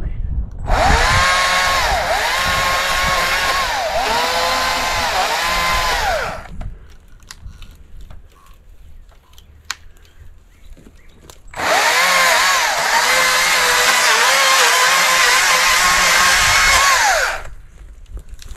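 Chainsaw cutting limbs off a downed cedar tree in two runs of about six seconds each. The saw's pitch dips and recovers several times as the chain bites into the wood. A quieter gap between the runs holds a few light knocks.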